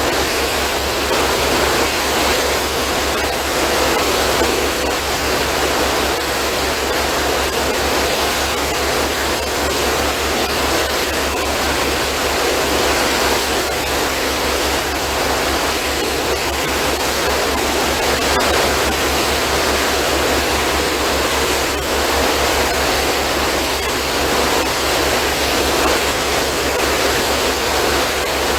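Ship's turbine engine running steadily: a loud, even roar of machinery with a fast, low pulsing underneath.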